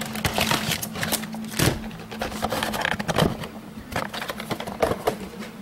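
Hands handling a trading-card box and its foil card packs: irregular crinkling, rustling and small clicks, over a faint steady low hum.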